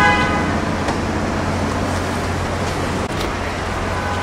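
Steady city street traffic noise with a low steady hum underneath. A brief voice sounds at the very start.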